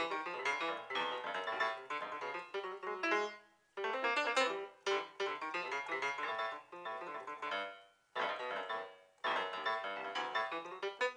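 Solo grand piano played free-jazz style: fast, dense runs and clusters of notes that break off abruptly twice, about four and eight seconds in, before starting again.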